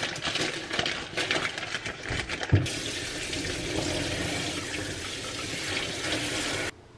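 A plastic bag crinkling and rustling with a knock about two and a half seconds in, then a kitchen tap running steadily onto grapes in a plastic colander, cutting off suddenly near the end.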